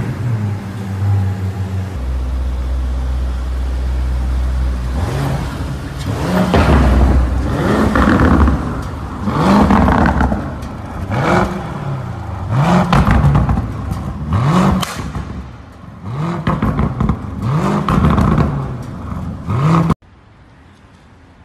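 Lamborghini Urus twin-turbo V8 exhaust, loud. It runs at a steady low rumble, then rises in pitch and falls back about seven times in quick succession. It cuts off suddenly near the end.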